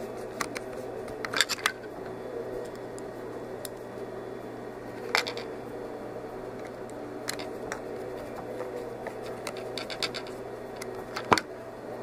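Scattered small clicks and ticks of a Phillips screwdriver working screws into the plastic housing of a VelaShape III applicator, with the plastic parts being handled, over a steady low hum. The sharpest click comes near the end.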